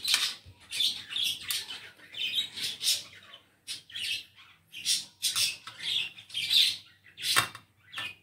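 Small birds chirping: many short, high chirps in quick, irregular succession.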